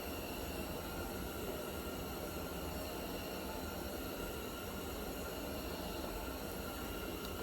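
Steady faint hiss of room tone, with no distinct event.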